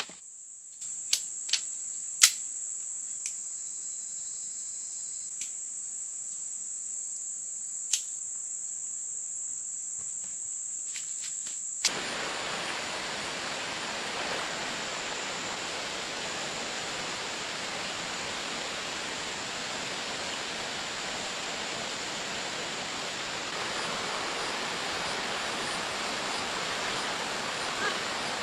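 A steady, high-pitched drone of jungle insects, broken by a few sharp clicks. About twelve seconds in it cuts off abruptly and gives way to an even, steady rushing hiss, like heavy rain or running water.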